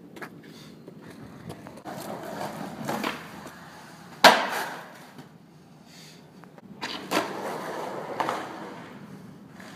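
Skateboard wheels rolling on concrete, then one sharp loud slap of the board landing about four seconds in after a jump down a set of stairs, followed by more rolling with a few clacks of the board near the end.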